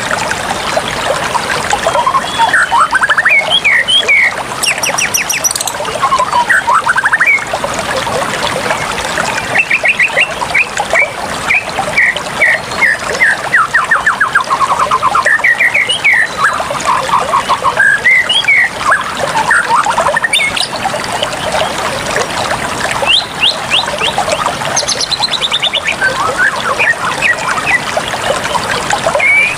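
Running water trickling and pouring steadily, with birds chirping and trilling over it throughout.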